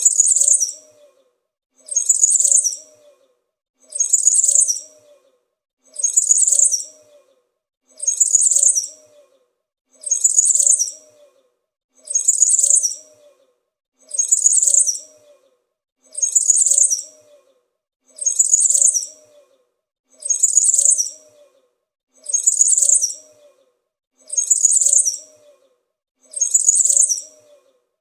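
Small forest songbird giving a high-pitched chirping warble: one short phrase of about a second, repeated identically every two seconds or so, as a looped sound effect.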